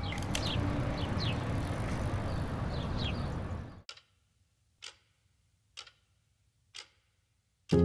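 Outdoor background noise, a steady low rumble with a few short falling bird chirps, cuts off suddenly about four seconds in. Then come four short clock-like ticks, about one a second, on near silence.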